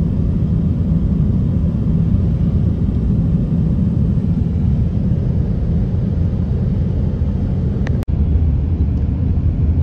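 Steady low rumble of a Honda Element driving, road and engine noise heard from inside the cabin. It breaks off for an instant about eight seconds in, at an edit, then carries on the same.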